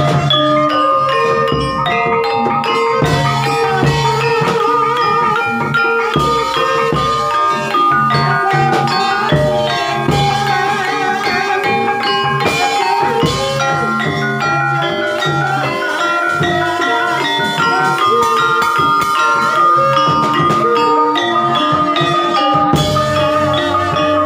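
Gamelan music of the kind that accompanies an Ebeg trance dance. Mallet-struck keyed instruments play steady, repeating interlocking note patterns, with occasional low drum strokes beneath.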